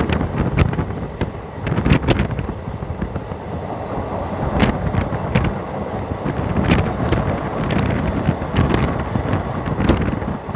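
Diesel-electric multiple unit (DEMU) passenger train running along the track, heard from aboard: a steady rumble with sharp, irregular clicks of the wheels over the rails, and wind buffeting the microphone.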